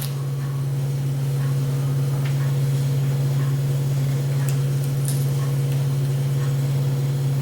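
A steady low hum throughout, with a few faint light clicks as a utility knife pries the small rubber screw covers off a laptop's screen bezel.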